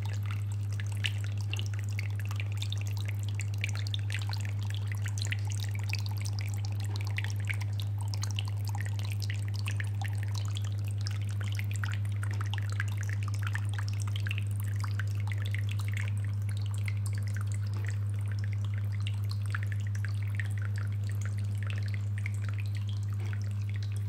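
Small homemade cement tabletop waterfall fountain running: water trickling and dripping steadily over the cement rocks into the basin, over a steady low hum from its submersible aquarium water pump.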